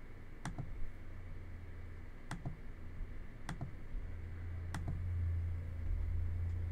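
Computer mouse clicks: four sharp clicks, each a second or so apart, some with a softer tick just after. Under them runs a steady low hum that swells from about four seconds in.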